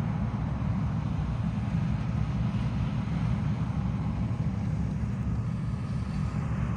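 John Deere 9750STS combine running steadily while harvesting corn, a constant low drone of engine and threshing machinery.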